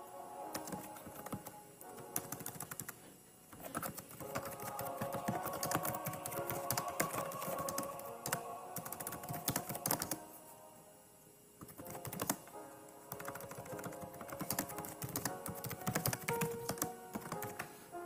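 Typing on a computer keyboard, a quick irregular run of key clicks that pauses briefly about ten seconds in, over soft background music.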